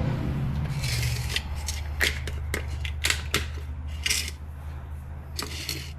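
Hand tools clicking and clattering on metal, with a few short rasping strokes, during work on a car's rear shock mounting. A low steady hum runs underneath.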